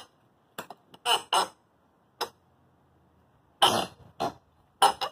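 Hand tools scraping and cutting at the base of a sided wall: about seven short, sharp scraping strokes at irregular intervals.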